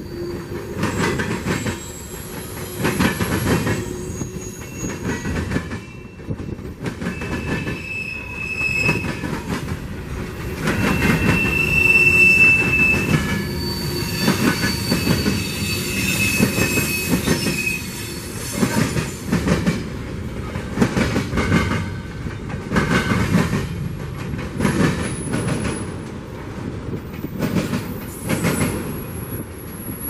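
Freight train cars rolling past, wheels clicking and clattering over the rails, with intermittent high-pitched wheel squeals. The loudest squeal comes about twelve seconds in.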